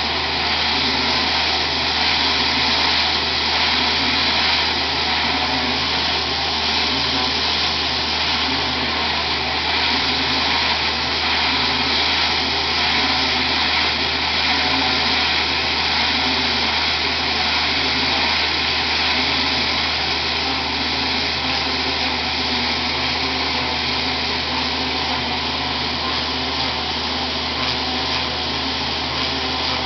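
EasyClean 600T poultry equipment washer running steadily as plastic slats are fed through it: a low, even hum under a constant high hiss, with no change in pace.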